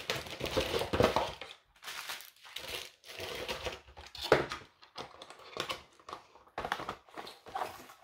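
Packaging being handled: crinkling and rustling in irregular bursts, with small clicks and knocks.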